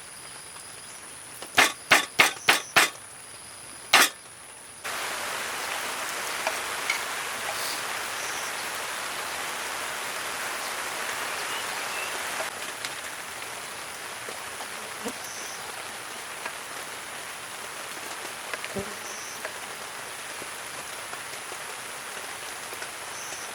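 Steady rain falling on surfaces, starting abruptly about five seconds in and running on as an even hiss. Before it, a quiet stretch with a steady high whine is broken by a quick run of five sharp clicks and one more a moment later.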